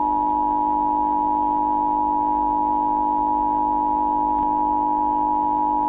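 Emergency Alert System attention signal: a steady two-tone electronic tone (853 and 960 Hz), held unbroken at an even level and cutting off near the end as the voice message begins.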